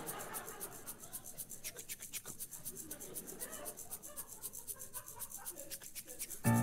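A steady scratchy swishing rhythm, about five strokes a second, with a murmur of audience voices in the first second. Piano chords come in right at the end.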